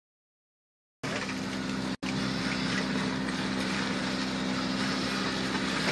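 Small Suzuki 4x4's engine running with a steady drone as it drives through a muddy ditch. The sound starts about a second in and cuts out for a split second shortly after.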